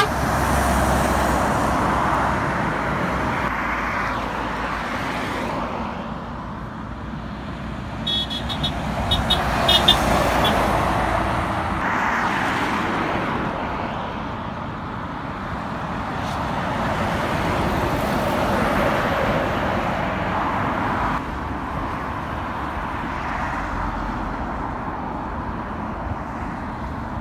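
Road traffic passing: lorries and cars going by one after another, the noise swelling and fading with each vehicle. A short pulsing high-pitched sound comes about eight seconds in.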